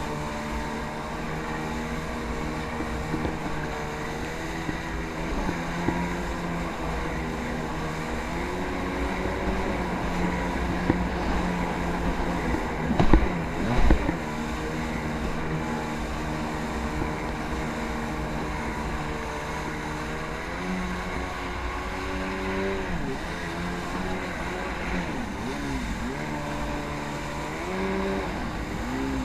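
Jet ski engine running on the water, its pitch rising and falling as the throttle is opened and eased, with wind rumbling on the microphone. There are two brief loud bumps about halfway through.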